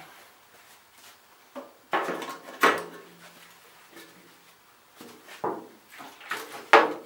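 Acetone can being picked up, tipped onto a paper towel and handled, with paper towel rustling: a string of separate clunks and handling noises, the loudest about two to three seconds in.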